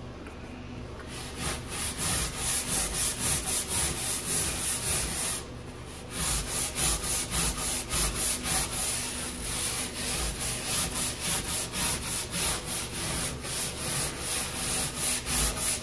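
Stiff-bristled brush scrubbing adhesive remover into a textured non-skid boat deck to loosen spray-adhesive residue. It goes in rapid back-and-forth strokes, about three a second, starting about a second in, with a brief pause around five and a half seconds in.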